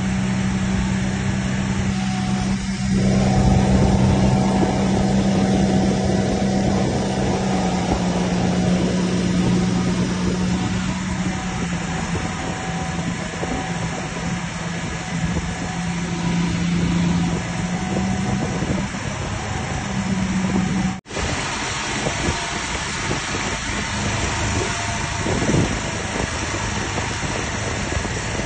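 A boat engine runs steadily with a constant low drone, under the rush of wind and water. The sound cuts out for an instant about two-thirds of the way through, then goes on.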